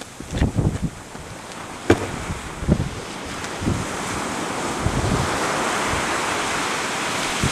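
Strong wind buffeting the microphone in irregular low thumps over the steady hiss of choppy sea, the hiss swelling about halfway through. A single sharp tick about two seconds in.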